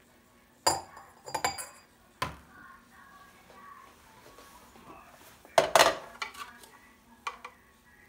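Glass tea glasses and mugs clinking against each other as they are handled and set down on a tray: a series of short, sharp clinks in small clusters, the loudest burst about two-thirds of the way through.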